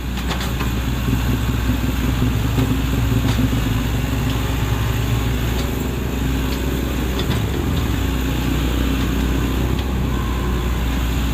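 Sany SY75 excavator's diesel engine running as a steady drone, its pitch wavering slightly as the machine works.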